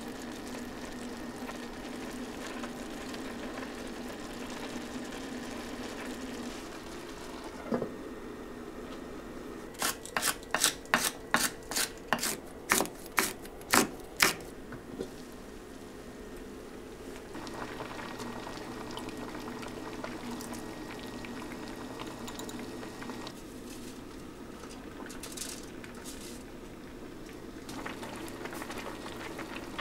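Chef's knife chopping chili peppers and scallions on a wooden cutting board: about a dozen quick, even cuts, roughly three a second, over a steady low background. Near the end a pot of soup bubbles on the stove.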